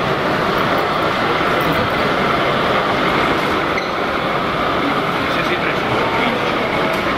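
Steady background hubbub of a busy hall, with indistinct voices.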